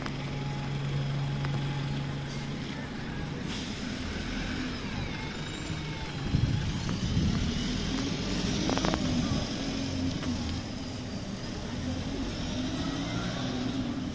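City street traffic with buses running and passing close by. It grows louder for a few seconds in the middle as a vehicle goes past.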